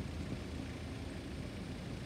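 Steady low rumble of road vehicle engines idling, unchanging throughout.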